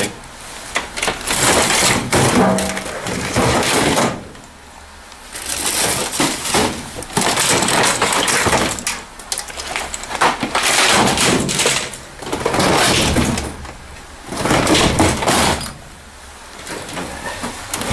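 Plastic bags crinkling and discarded electronics and cables shifting as someone digs by hand through a dumpster of junk. It comes in bursts of a few seconds with short lulls between.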